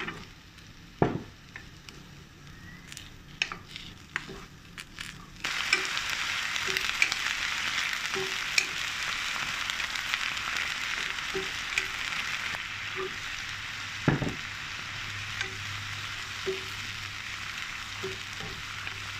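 Vegetables stir-frying in a nonstick pan with a wooden spatula. At first there are only a few sharp knocks as asparagus is tipped in onto mushrooms. About five seconds in, a loud, steady sizzle starts suddenly and keeps going, with light spatula taps and scrapes through it.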